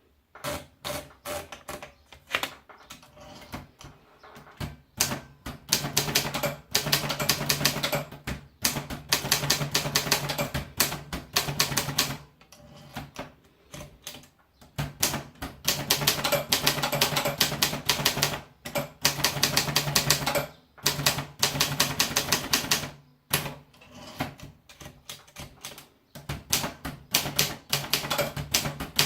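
Olympia Elite typewriter being typed on: runs of rapid key and typebar strikes lasting several seconds, broken by short pauses.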